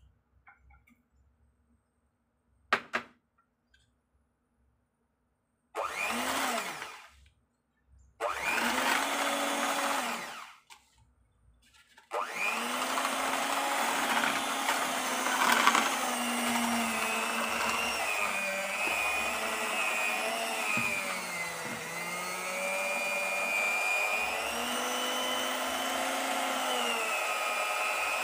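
Electric hand mixer beating a cake mixture in a bowl: two short bursts, then running steadily from about halfway, its motor pitch wavering as it works through the mixture. A sharp double knock comes about three seconds in.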